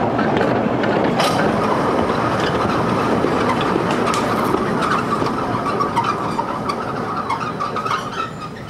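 Kurobe Gorge Railway trolley train running along its narrow-gauge line, heard from aboard: dense rumble and rattle of wheels on rail, with a steady squeal of wheels on the curve from about a second in until near the end.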